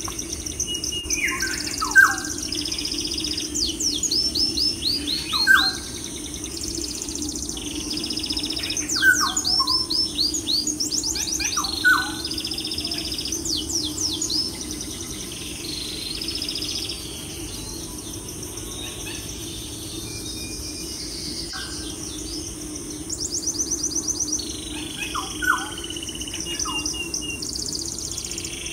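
Birds chirping and calling, with quick repeated trills and sharp falling notes every few seconds, thinning out in the middle. Under them runs a steady low hum.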